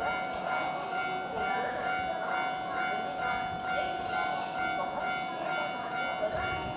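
Kintetsu 9020/9820-series train approaching the station, not yet in sight: a steady ringing tone over a low rumble.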